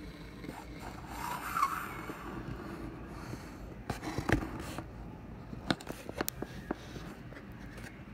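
Scraping and rubbing close to the microphone, with a short scrape about a second and a half in, then a few sharp clicks around four seconds and several more in quick succession a little later, over a steady low rumble.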